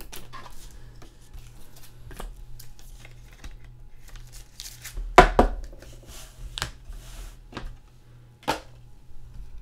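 Clear rigid plastic card top-loaders being handled: a thick card is worked into a holder with light scraping and clicking, and a few sharp plastic clacks, the loudest about halfway through.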